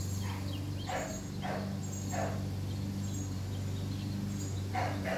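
Puppy giving short, high yips: four in the first couple of seconds, then two more near the end, over a steady low hum.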